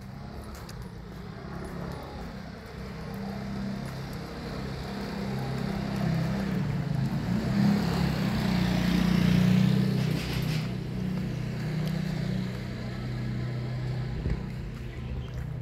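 A motor vehicle passing by: its engine grows louder over several seconds, is loudest a little past the middle, then fades away.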